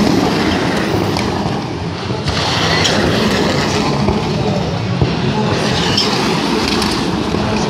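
Rallycross car engines at high revs as the cars race past on a loose-surfaced track, with tyre and gravel noise and a few sharp cracks.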